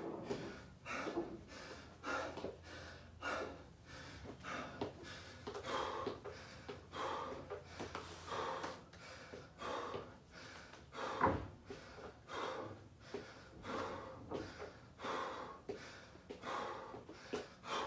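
A man breathing hard and fast, short gasping breaths about two a second: winded, catching his breath between sets of burpees. One louder thump about eleven seconds in.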